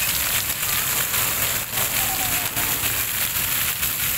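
Fountain jets splashing down into their pool, a steady wash of falling water.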